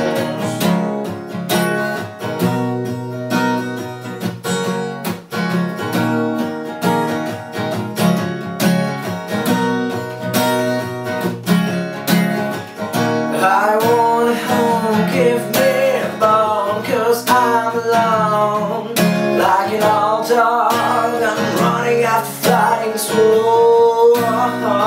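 Acoustic guitar strummed in a steady rhythm. About halfway through, a man's voice joins, singing a long, bending melody over the chords.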